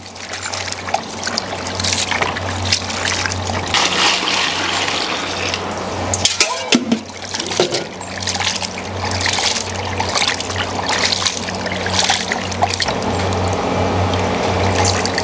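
Water splashing and sloshing as cut intestine (boti) is washed by hand in a wide uruli pan, over background music.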